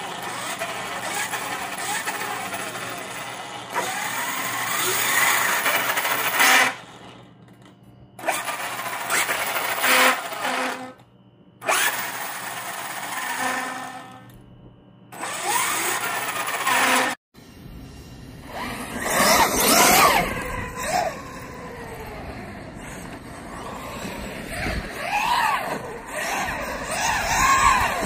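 Brushless electric motor of a 1/5-scale RC car on a 12S Castle Cobra 5 HV ESC, revved up and down in several bursts with the car up on a stand, its whine rising and falling. After a sudden cut about two-thirds of the way through, the car is heard driving, its motor whine swelling and fading with the throttle.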